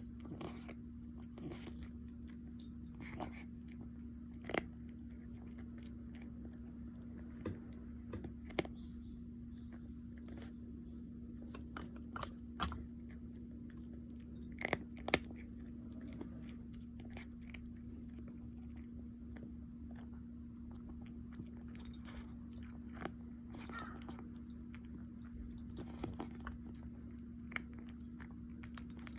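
An animal chewing crunchy food: irregular crackly crunches and clicks, a few louder ones in small clusters, over a steady low hum.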